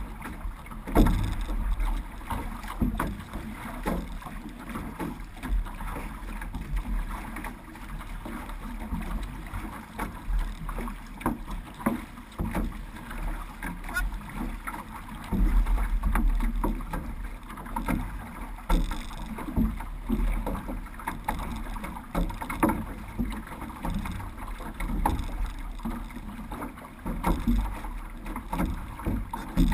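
Paddles of a six-person outrigger canoe (OC6) dipping and pulling through the water in repeated strokes, with water washing along the hull and wind buffeting the microphone.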